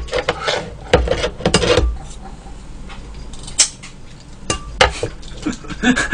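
Metal tongs and kitchen scissors knocking and clinking against a metal bowl while food is handled: a string of separate sharp clicks at irregular intervals.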